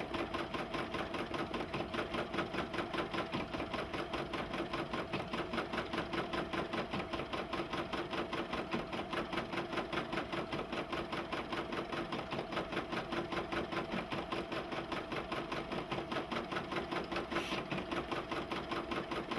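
Brother PE770 embroidery machine running a stitch-out, its needle bar chattering in a fast, even rhythm as it fills in a design. A brief sharp click near the end.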